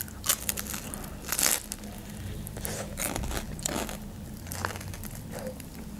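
Close-miked biting and chewing of a crisp pastry with a curd (tvorog) filling: a series of crunches, loudest about a second and a half in.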